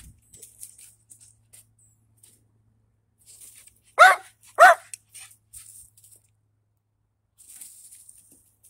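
Small dog barking twice in quick succession, two short, sharp barks about two-thirds of a second apart.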